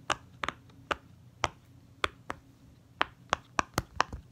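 Rainbow silicone push-pop fidget toy (pop-it) being popped on its loud side: a string of sharp pops, spaced unevenly at first and coming faster near the end.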